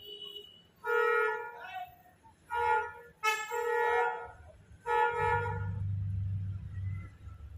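A vehicle horn honking four times, short blasts with the last one longer, then the low rumble of a vehicle's engine going by.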